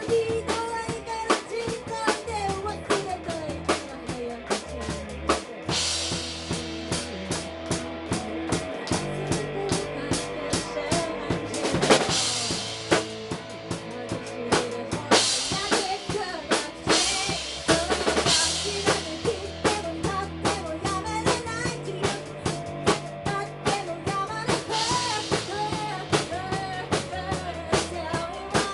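Band rock music playing, driven by a full drum kit with snare, bass drum and rimshots over a steady bass line and a melody.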